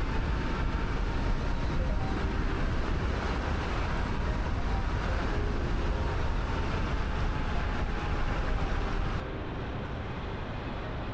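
Wind rush and road noise from an electric scooter ridden at about 45 mph, heaviest in the low end. About nine seconds in, it drops abruptly to a quieter, duller rush.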